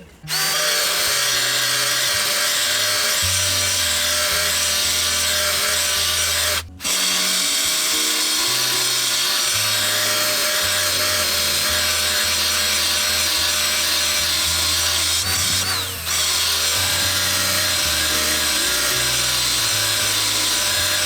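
Electric drill running a blade-sharpening attachment, grinding along the edge of a steel lawnmower blade held in a vise: a steady loud grinding with a motor whine. It stops briefly about seven seconds in and again around sixteen seconds in before starting up again.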